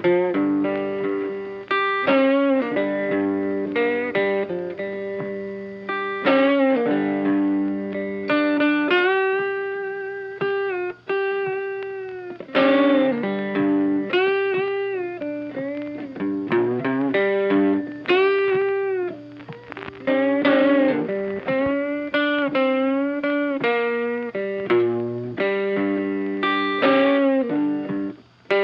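Background music: a melodic guitar instrumental, single notes sustained with vibrato and bends over a steady accompaniment.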